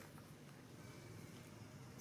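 Near silence: faint steady low background noise.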